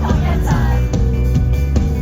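A live band playing an indie pop song, with a steady drum beat, bass and guitar.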